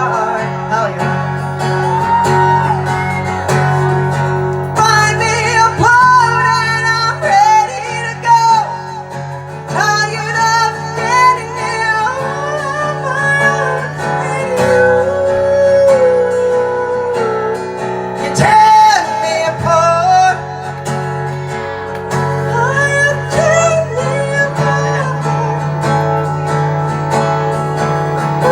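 A song performed live: a solo voice singing a wavering melody over guitar accompaniment.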